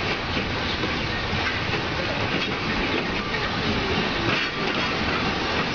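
Beyer Peacock steam locomotive N120 moving slowly with its coaches along yard track: a steady rumble of rolling wheels with clacking over the rail joints and a hiss of steam.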